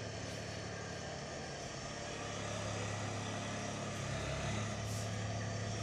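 A steady low mechanical hum with background hiss, growing a little louder about two seconds in.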